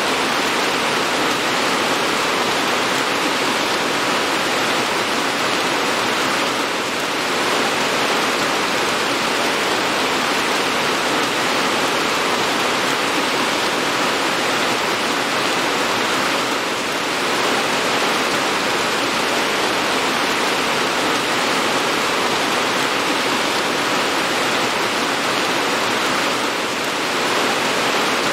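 Steady rain falling, a dense, even hiss that dips slightly about every ten seconds.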